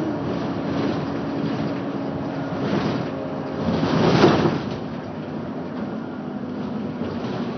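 Mercedes-Benz Citaro city bus driving, heard from inside the passenger cabin: a steady engine and drivetrain hum over road noise. The engine note drops right at the start, and a louder rushing noise swells and fades about four seconds in.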